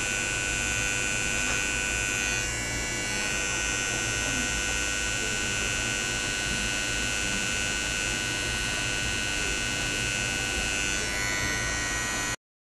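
Corded electric hair clipper buzzing steadily as it edges the hairline around the ear, its tone shifting slightly as the blade moves against the hair. It cuts off suddenly near the end.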